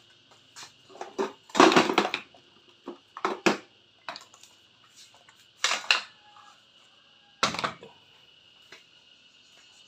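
Cordless power tools being picked up and set down on a tiled floor: a handful of hard knocks and clatters, the loudest about a second and a half in, with quieter knocks spread through the rest.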